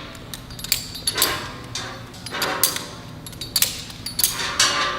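Metal locking carabiners being handled quickly: a string of sharp clicks and clanks as gates snap and the carabiners knock against metal, some briefly ringing.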